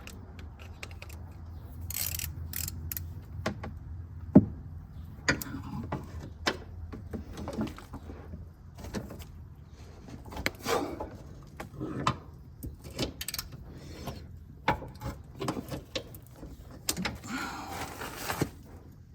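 Hand wrench clinking, clicking and knocking against a seized metal fitting as it is strained at without coming loose, in scattered irregular strokes with short scraping rubs. One sharp knock about four seconds in is the loudest.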